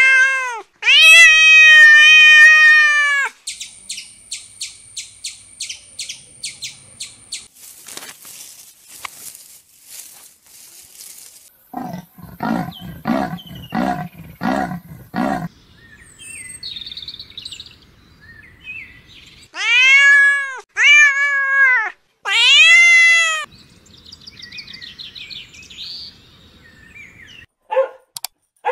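A string of separate animal calls. A domestic cat meows loudly at the start, followed by a few seconds of rapid, evenly spaced high chirps. Then come pulsed calls and, about twenty seconds in, three more drawn-out meow-like calls. Near the end, a puppy gives a few short yips.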